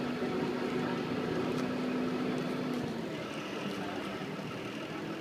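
Water bus engine running steadily, heard from aboard over the rush of water along the hull. A steady low tone in the hum fades out about three seconds in, as a higher tone comes in.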